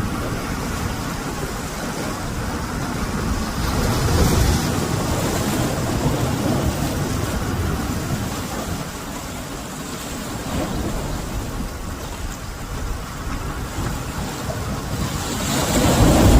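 Sea surf washing on the shore, mixed with low wind rumble on the microphone; the noise swells about four seconds in and again near the end as waves break.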